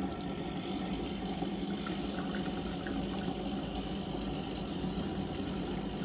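Milesto EM19-M3 (Elaine M3) dual-boiler espresso machine's pump running with a steady hum, pushing hot water through the group head and double-spout portafilter into two cups to preheat them.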